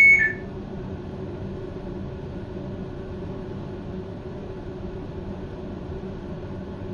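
Steady low hum from a standing train's onboard equipment, with a few steady tones in it. A two-tone alternating electronic beep cuts off just after the start.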